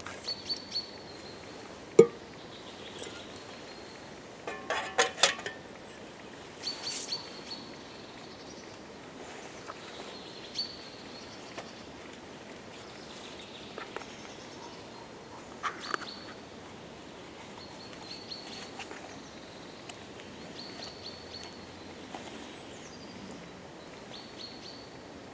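Small birds calling, a short thin high note repeated every few seconds over a steady outdoor hiss. A sharp click about two seconds in and a quick run of clicks and knocks around five seconds.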